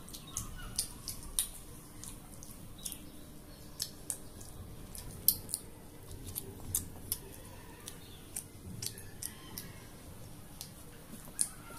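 Eating sounds from a whole grilled chicken pulled apart by hand and chewed: sharp, irregular crackly clicks and smacks, two or three a second, one louder snap about five seconds in.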